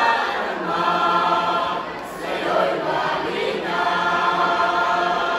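Mixed teenage choir of boys and girls singing held chords in harmony. The sound dips briefly about two seconds in, then the choir takes up a new sustained chord.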